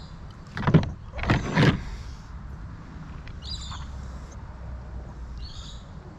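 Cooked mud crab shell being cracked and broken apart by hand, two crackly crunching bursts about a second in.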